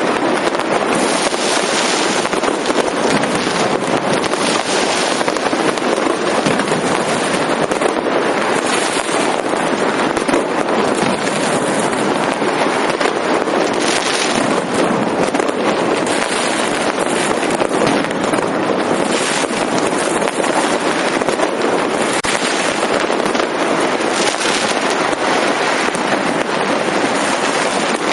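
Fireworks and firecrackers going off densely all around, blending into a continuous, loud crackling din that swells brighter every few seconds.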